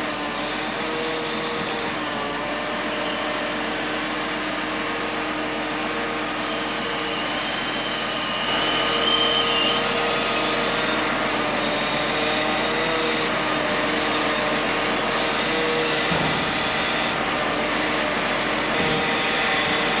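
Log-loading machine's engine running steadily as it works, getting louder about eight seconds in, with a brief high squeal near nine seconds.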